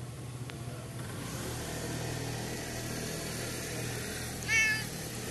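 A cat gives one short meow about four and a half seconds in, over a steady low hum.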